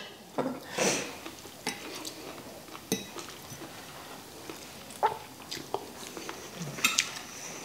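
Spoons and forks clinking against plates now and then, with quiet chewing and a couple of brief low murmurs.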